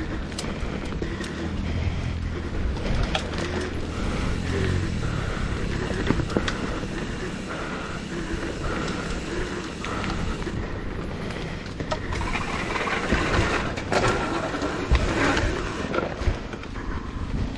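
Mountain bike riding down a rough dirt downhill trail: a steady rushing noise from tyres and air, broken by frequent sharp rattles and knocks as the bike goes over bumps.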